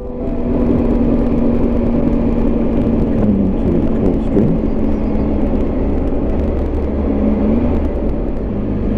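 Triumph Tiger 800 XRT three-cylinder motorcycle engine running at road speed, with wind and road noise. The engine note is steady, dips briefly about three to four seconds in, and shifts again near the end.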